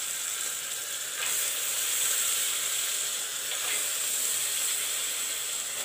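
Masala frying in oil in a pressure cooker, sizzling with a steady high hiss, as the freshly added soaked chickpeas and potatoes are stirred in with a spatula.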